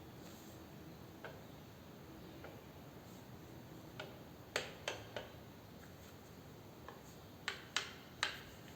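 Scattered sharp light clicks and taps of metal being handled, as the removed motorcycle driveshaft and its universal joint are worked by hand to check for play. The clicks come in two small clusters, one in the middle and one near the end.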